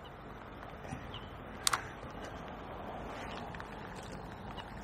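Faint, steady outdoor background hiss with a single sharp click about a second and a half in.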